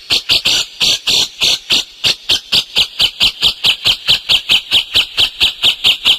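Songbird chirping in a fast, steady series of short, loud notes, about four to five a second.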